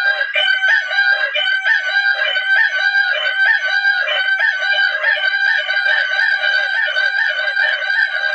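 Rooster sound effect: a continuous, unbroken crow-like tone with short clucking calls repeating about two to three times a second over it.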